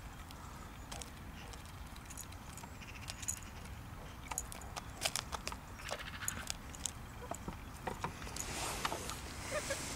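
Chickens pecking at mixed seed in a plastic tub: irregular clicks and taps of beaks striking grain and the plastic.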